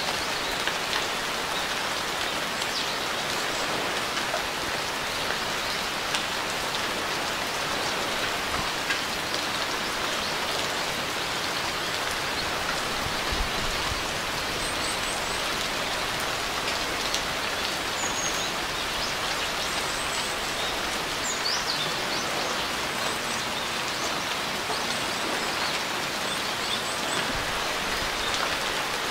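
Steady rain falling on a surface, an even hiss with scattered drop ticks. A few faint, short, high bird chirps come through in the second half.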